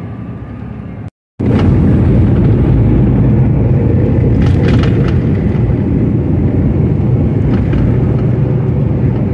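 Loaded grain truck driving on the road: a loud, steady, low rumble of engine and road noise. It begins abruptly about a second in, after a short, quieter stretch and a brief cut to silence.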